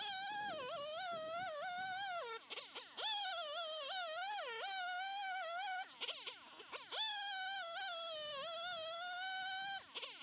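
Chainsaw cutting through hickory logs: three cuts at full throttle, the pitch sagging as the chain bites into the hard wood and recovering, with the engine dropping back and revving up again in the short breaks between cuts.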